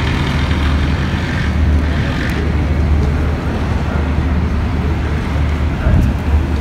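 Busy city waterfront ambience: a steady, loud low rumble of wind and distant engines.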